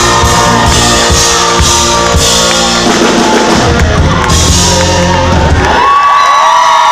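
Live rock band (drums, bass and electric guitars) playing the final bars of a song, breaking off about six seconds in. A crowd then cheers and whoops.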